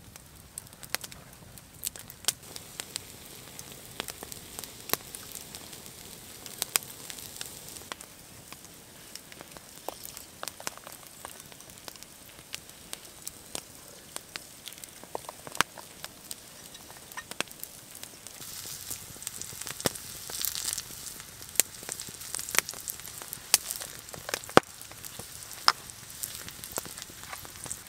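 Wood campfire crackling, with sharp pops at irregular moments. Later on, the sizzle of food frying in a pan over the fire comes in as a steady high hiss under the pops.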